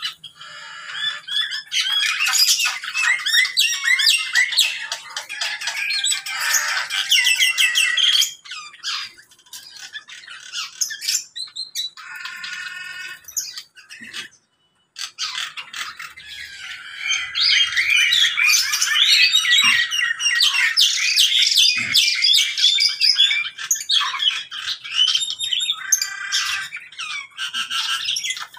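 A mixed flock of caged birds, lovebirds prominent among them, squawking and chattering in dense, overlapping high calls. The calls come in two long busy spells, with a quieter stretch and a brief drop-out about halfway through.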